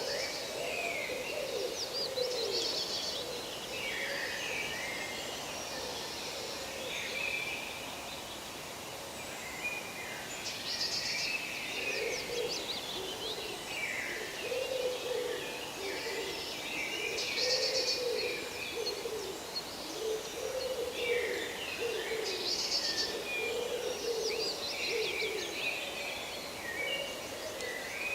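Forest birdsong: several birds singing and calling in short, high, varied phrases, over a low call repeated again and again, mostly in the second half.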